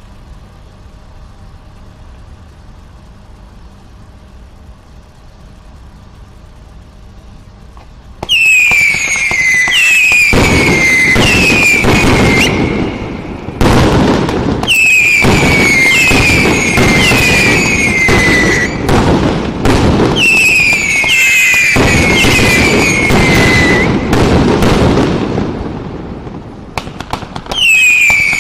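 A 1.1-inch, 56-shot firework cake firing. A low steady hum runs for about eight seconds, then the shots go off in rapid volleys, roughly two a second. Each shot is a whistle falling in pitch with bangs and crackling, and the firing pauses briefly twice.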